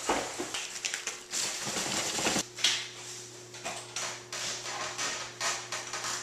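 Rustling with scattered clicks and knocks from objects being handled and rummaged through, over a low steady hum.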